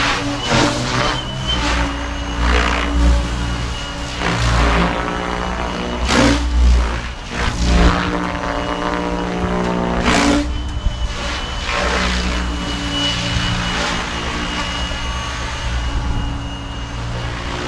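Goosky RS7 electric RC helicopter in flight: a steady motor and gear whine under the swish of the main rotor blades, with loud blade whooshes swelling and fading as it manoeuvres, strongest about six and ten seconds in.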